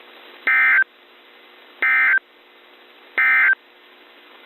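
Three short, buzzy EAS/SAME digital data bursts on NOAA Weather Radio, each about a third of a second long and about a second apart. Bursts this short, sent right after the bulletin, are the SAME end-of-message code that closes the alert.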